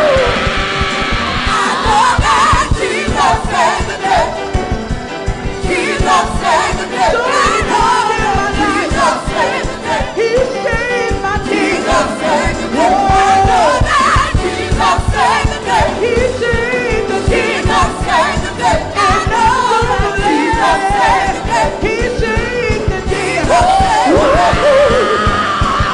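Live gospel choir singing with instrumental accompaniment over a steady beat.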